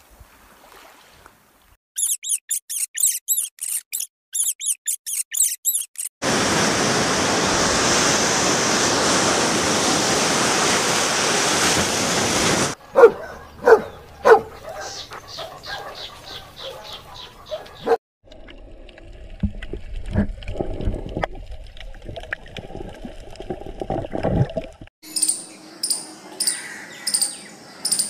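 A run of separate animal clips: rapid high chirping, then several seconds of loud steady rushing noise, then scattered clicks and squeaks and a lower rumbling stretch. Near the end an Indian palm squirrel gives sharp chirps about twice a second, flicking its tail as it calls.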